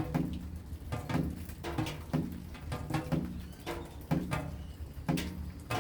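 Rain dripping steadily onto a hollow surface: short knocks, each with a low hollow ring, about two to three a second in an uneven rhythm.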